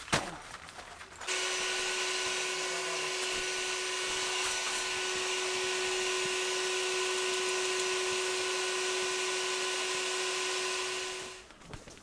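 A small electric motor runs at a steady, unchanging pitch for about ten seconds. It starts abruptly about a second in, just after a click, and winds down near the end.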